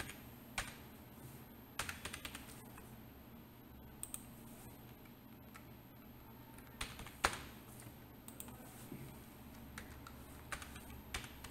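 Computer keyboard keys being typed in short, irregular runs: scattered faint key clicks with pauses between them as text is entered into form fields.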